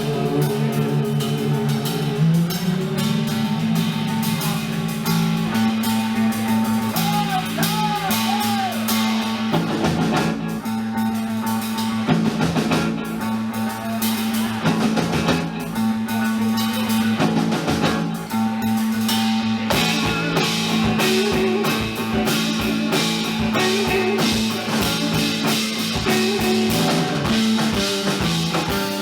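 A live band playing an instrumental passage of an americana-funk song: guitar over a steady drum kit beat and sustained low notes.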